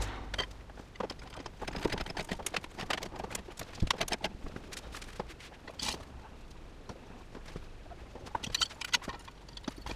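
Irregular clicks and clunks of a trolley jack and its handle being worked at a car's front wheel, with a heavier knock about four seconds in.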